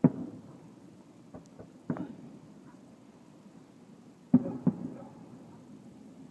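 Firework shells bursting as sharp booms, each with a short rumbling tail: one at the start, one about two seconds in, and two in quick succession a little past four seconds.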